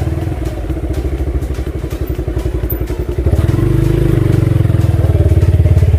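Motorcycle engine running under way, its fast, even firing pulses steady at first, then getting louder about three seconds in and staying so.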